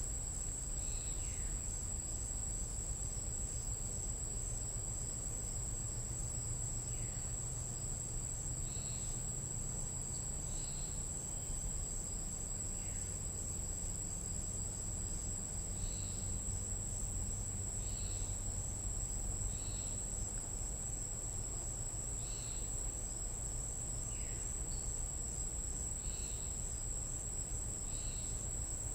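Night insects in a tropical jungle, a steady high-pitched drone, with short chirp-like calls from other animals repeating every couple of seconds, some sliding down in pitch.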